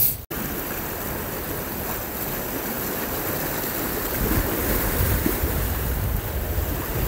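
Sea surf washing against a rocky shore, a steady rushing, with wind on the microphone.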